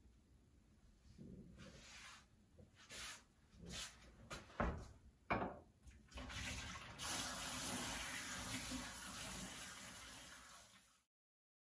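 A few light knocks and clatters, then water running steadily from a tap, cutting off near the end.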